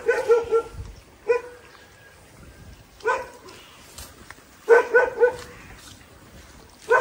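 A dog barking repeatedly, in quick runs of two or three barks with pauses of a second or two between.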